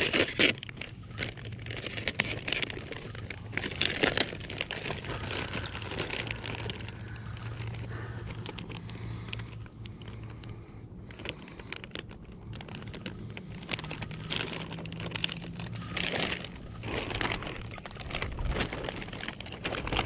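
Thin clear plastic fish bag crinkling as it is handled in the water, with grass rustling. The sound is irregular and comes in louder bouts at the start, about four seconds in, and around sixteen seconds in.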